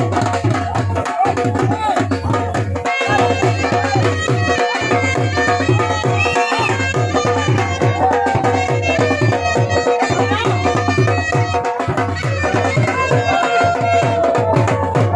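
Dhol drum beating a steady, fast folk rhythm while baja wind instruments play a wavering melody over it.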